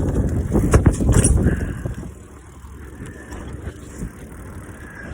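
Bicycle being ridden, with wind buffeting the microphone and the bike knocking and rattling over the ground. Loud for about the first two seconds, then easing to a quieter rumble.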